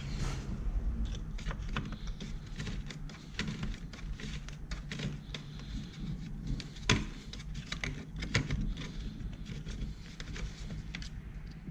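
Scattered light clicks and taps of hands handling a bottle and the filler while new engine oil is poured into a small four-stroke scooter engine, over a low steady hum.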